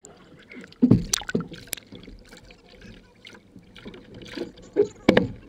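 Water splashing and sloshing around a capsized Hobie Cat catamaran, with several loud splashes or knocks, the loudest about a second in and again near the end.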